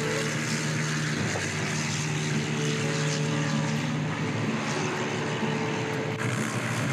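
Light bush plane's piston engine and propeller running at full takeoff power, a steady drone through the takeoff roll and liftoff.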